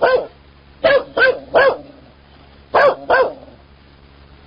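Guard dog barking angrily: six short, sharp barks in quick bursts of one, then three, then two.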